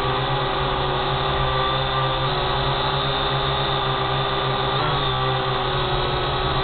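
Quadcopter drone's motors and propellers whining steadily, the pitch shifting slightly about two seconds in and again near five seconds.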